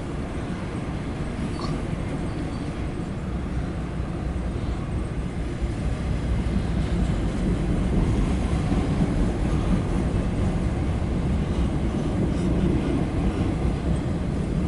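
Loaded autorack freight train rolling past: a steady low rumble of cars and wheels on the rails, growing somewhat louder about six seconds in.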